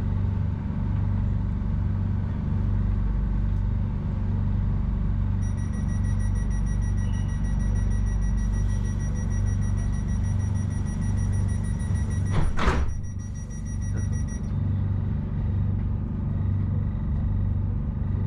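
Bangkok Airport Rail Link train standing at a station with its equipment humming steadily. About five seconds in, an electronic warning beep starts; it is typical of the door-closing warning. About twelve seconds in there is a short loud noise as the doors shut, and the beeping stops about two seconds later.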